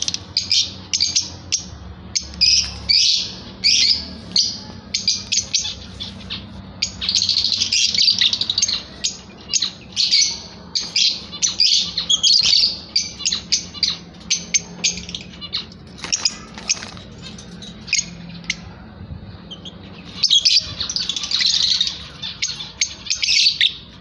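Blue Fischer's lovebirds chirping: a rapid string of short, high-pitched calls, thickening into denser chatter about a third of the way in and again near the end.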